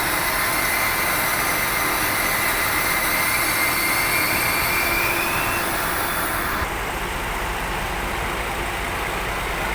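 A heavy engine running steadily with a faint whine that rises slightly and fades out a little past halfway. About two-thirds of the way through, the sound changes abruptly: the hiss drops away and a lower rumble takes over.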